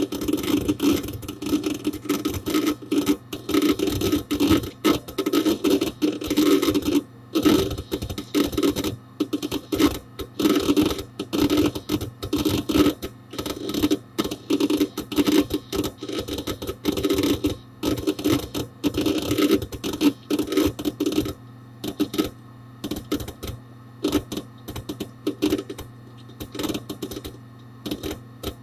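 Hard disk drive in a Dell Dimension 4700 desktop seeking: rapid, irregular clicking and chattering of the read/write heads over a steady low hum, picked up from inside the case close to the drive. The activity is busy and dense for most of the time, then thins to occasional clicks in the last quarter.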